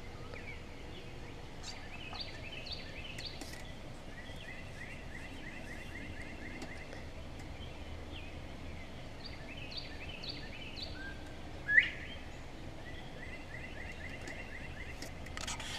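Dawn bird chorus: several birds chirping and trilling over a steady outdoor hush, with one loud, short rising call about twelve seconds in.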